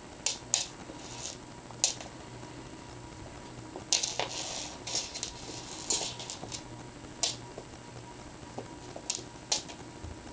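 Siamese kittens' paws and claws tapping and skittering on a wooden floor as they chase and pounce: irregular quick clicks, with a busier flurry about four seconds in.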